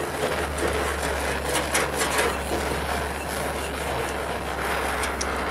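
Hand-held propane torch burning with a steady rushing noise as its flame is held on painted sheet steel, with a few short scrapes of a scraper on the blistering paint.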